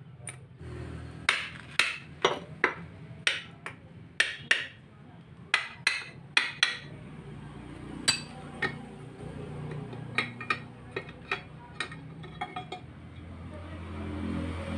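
Repeated sharp metal-on-metal taps on a Suzuki Multicab manual transmission being dismantled, about twenty in irregular clusters, lighter and sparser after about eight seconds, as the gear shafts and case plate are worked free.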